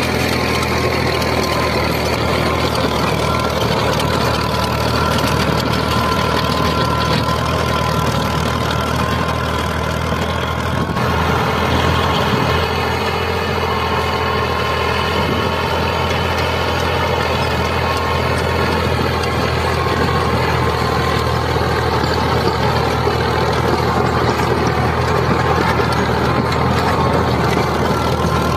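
Miniature tractor pulling a rotavator through sand: a steady engine-like drone with a constant low hum and a thin, steady whine above it, shifting slightly about eleven seconds in.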